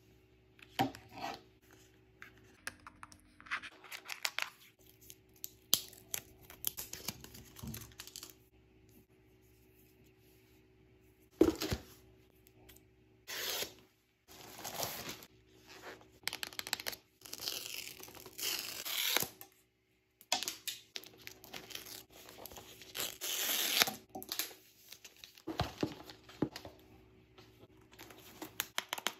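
Plastic mailer packaging being torn open and crinkled, with paper and cardboard box packaging handled, in irregular bursts with pauses. A single sharp knock about a third of the way in is the loudest sound.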